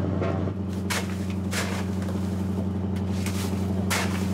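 A trawler's engine running with a steady hum. Four short scraping noises come over it, spaced about a second apart.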